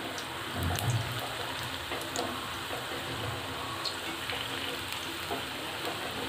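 Cauliflower fritters deep-frying in hot oil, a steady sizzle with scattered crackles, just turned to fry their second side. A soft low bump comes about a second in, as they are moved about with a wire-mesh skimmer.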